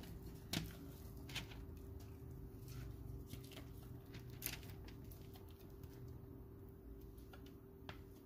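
A few light, scattered clicks and taps of a utensil against a mixing bowl as sticky dough is scraped out, over a low steady hum.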